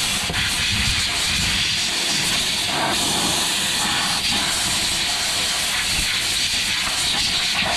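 Compressed air hissing steadily from an air-compressor blow gun, blasting soapy water and dirt off the fuel pump lid and the top of the fuel tank.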